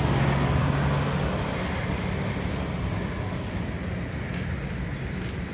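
Street traffic: a steady rush of passing motorcycles and cars, with a low engine hum that fades about a second in and the overall noise slowly easing after it.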